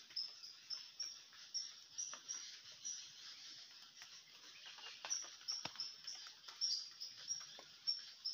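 Small birds in a fruiting banyan tree giving short, high chirps, about two or three a second.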